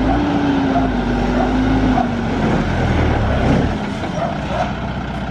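Delivery truck engine running. Its steady hum wavers, then fades about two seconds in, and the sound drops a little quieter near the end.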